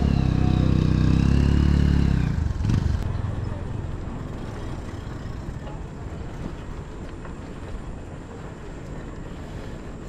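A motor vehicle's engine passes close, loudest in the first two and a half seconds and then dying away. After that a steady rush of wind and road noise continues, heard from a moving bicycle.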